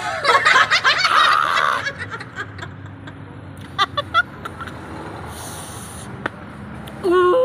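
A woman laughing loudly for about two seconds after biting into a very sour wild orange, then quieter, with a short held hum near the end.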